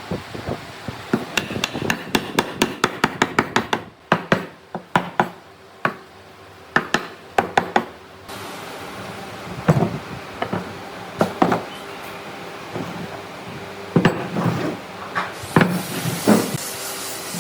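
Repeated hammering: a fast run of sharp strikes, about four a second, in the first half, then slower, scattered blows, with a steady hiss behind them from about halfway.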